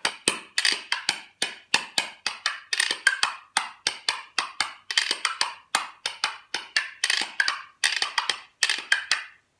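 A pair of hand-carved maple wooden spoons played as rhythm percussion, clacking in a quick steady rhythm of about four to five strokes a second; the clacking stops shortly before the end.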